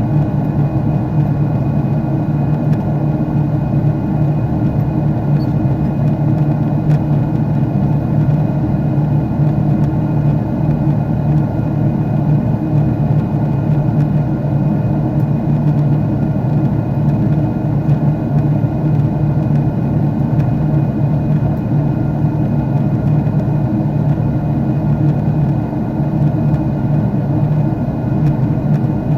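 Jet airliner cabin noise at a window seat: the steady rush and drone of the engines, with a constant low hum under an even wash of noise.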